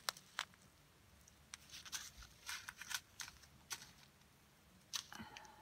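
Small plastic bags of square diamond-painting drills being picked up and sorted by hand: a scatter of soft crinkles and clicks.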